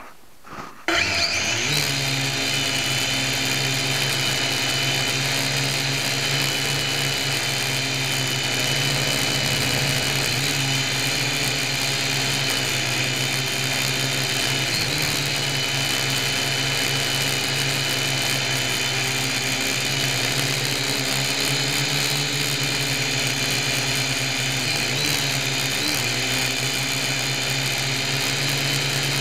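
Syma X1 quadcopter's four small electric motors and propellers spinning up about a second in, the whine rising in pitch, then running as a steady high whine and buzz in flight, with slight wavers in pitch now and then. It is heard very close, from a camera mounted on the quadcopter's frame.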